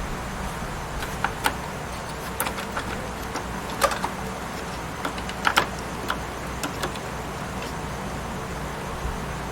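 Scattered light clicks and taps of plastic SATA power connectors being handled and pushed onto hard drives inside a desktop PC case, over a steady low hum.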